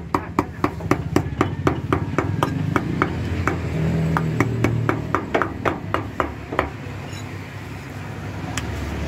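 Butcher's cleaver chopping mutton on a wooden block: quick, even strokes at about four a second that stop about six and a half seconds in, with one more chop near the end.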